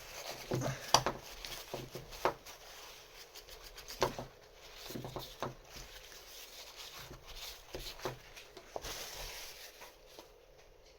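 Small metal parts of a LaGard 2200 lock being handled during disassembly: scattered light clicks and taps, a few of them sharper, the strongest about a second in.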